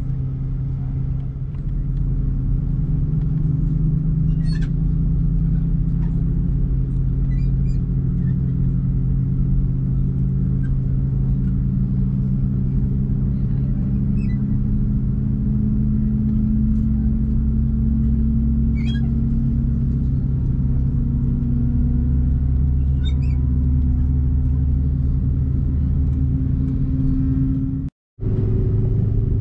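Airbus A330-200 turbofan engines starting, heard inside the cabin: a steady low rumble with a hum that slowly rises in pitch as an engine spools up, and a few faint clicks.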